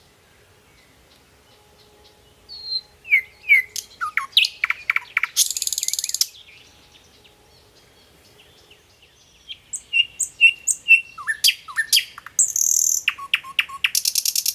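Small birds chirping: quick descending chirps mixed with buzzy, rapidly pulsed trills, coming in two spells with a quiet few seconds between them.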